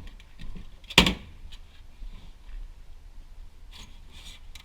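Hard parts being popped out of a server blade by hand: one sharp, loud clack about a second in, then lighter clicks and handling noise.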